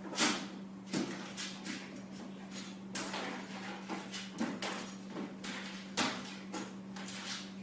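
Irregular knocks and clatters, a dozen or so, the loudest just after the start and about six seconds in, over a steady low hum.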